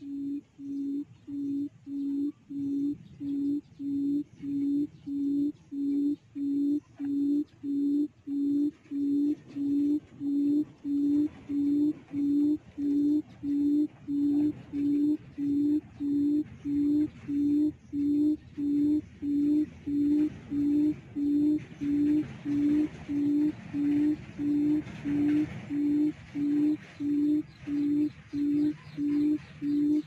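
A recorded quail call played through a speaker as a lure: a low, hooting note repeated steadily, about one and a half times a second.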